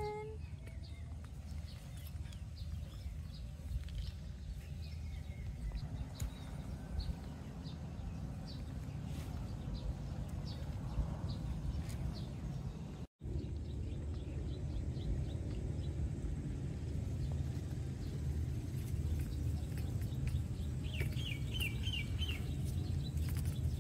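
Outdoor field ambience: a steady low rumble with small birds chirping now and then. Near the end comes a quick run of about five high squeaks. A split-second dropout falls about halfway through.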